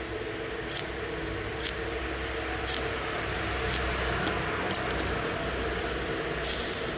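Cold welding machine firing short welding pulses: sharp snaps roughly once a second over a steady electrical hum.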